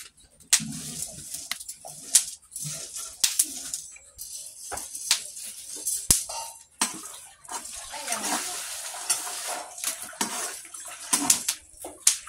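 Metal spatula scraping and clicking on a comal as squash seeds and maize kernels are stirred while they dry-toast, the seeds rattling and hissing as they are pushed across the pan. It comes in irregular strokes, with a longer run of scraping about eight seconds in.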